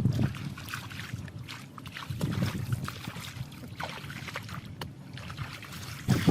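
Water splashing and sloshing: scattered short splashes and drips over a steady low rumble.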